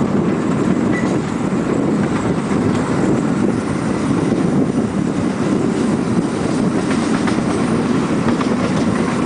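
Quarter-scale ride-on train rolling along its track, heard from a riding car: a steady rumble of wheels on rail, with a few light clicks later on.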